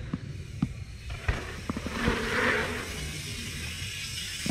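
Hardtail mountain bike rolling down a dirt jump line: tyre noise on the dirt swells as the bike nears, about two seconds in, over scattered knocks and rattles from the bike.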